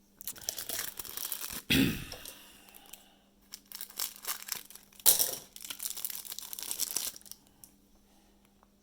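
Foil wrapper of a trading-card pack crinkling and tearing as it is handled and opened, in irregular rustling bursts with louder crackles about two and five seconds in. A faint steady hum sits underneath.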